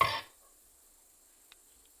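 Nesonotus reticulatus katydid tapping: a sharp tap at the start runs into a short raspy burst, and a faint tick follows about one and a half seconds in.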